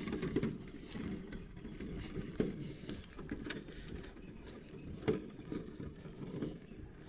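An empty wheelbarrow rolling over a rough dirt track, rumbling and rattling, with a sharp knock about two and a half seconds in and another about five seconds in.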